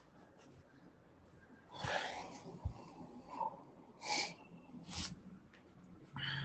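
A man's short, noisy breaths and sniffs close to the microphone, four or five of them over the last four seconds, with a soft knock among the first ones.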